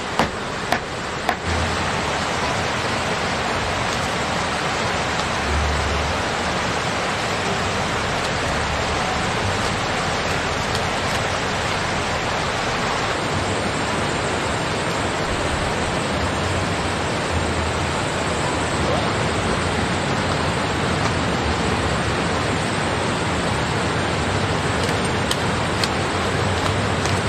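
A few knife chops on a wooden cutting board in the first second or so, then steady rain.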